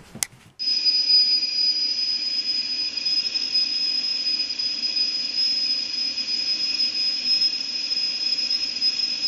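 A steady high-pitched whine over a hiss, starting abruptly about half a second in.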